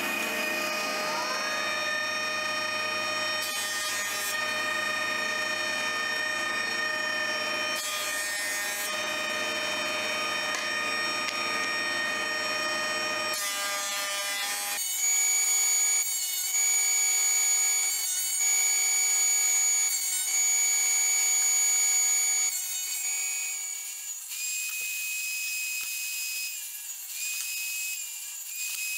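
A Record Power planer-thicknesser runs with a steady motor whine, with louder rasping stretches twice as boards are fed through. Near the end the sound changes to a table saw running and cutting wood.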